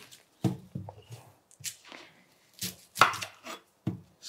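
Chef's knife cutting a brown onion on a wooden chopping board: irregular knocks of the blade striking the board, about eight in four seconds.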